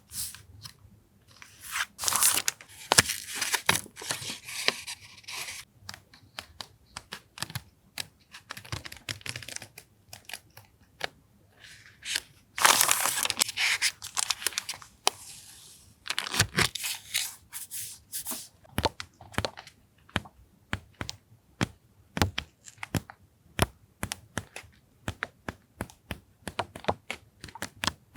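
Paper being torn and handled at close range: two longer rasping tears or rustles, about two seconds in and again around thirteen seconds, with many small ticks and taps of paper and stationery in between.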